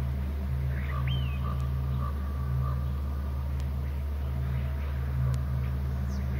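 A steady low hum, with faint bird calls about a second in: one rising note and a short run of repeated notes.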